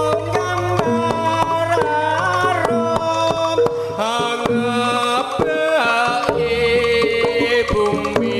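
Live Javanese jaranan accompaniment: a wavering, sliding lead melody over kendang hand drums and gamelan percussion.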